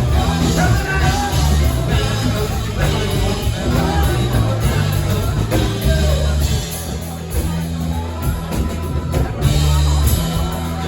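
Live rock band playing, with singing over a steady full-band sound.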